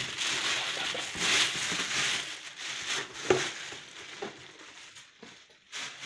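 Thin plastic shopping bag crinkling and rustling as a boxed kettle is pulled out of it, with one sharp knock about three seconds in and then quieter, scattered rustles.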